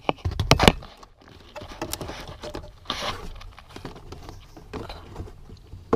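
Hands working two small plastic clips free on a BMW E90 fuse box cover: a quick cluster of sharp plastic knocks at the start, then scattered clicks and scraping through the rest, with one more sharp click near the end.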